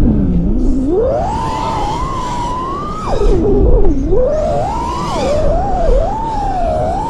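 Brushless motors of a small FPV freestyle quad (Oddity Roxy 36 on LANNRC 1505 3750kv motors) whining, the pitch sweeping up and down with the throttle, dropping sharply on throttle cuts, over propeller wash.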